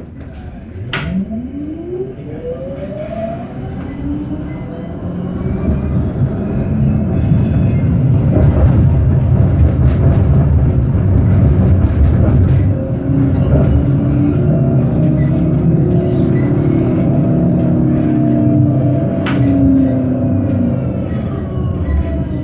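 Electric tram pulling away, its traction motor whine rising in pitch as it speeds up. It then runs at speed with a loud, steady rumble of wheels on rails, and the whine starts to fall near the end as it slows. A sharp click comes about a second in and another near the end.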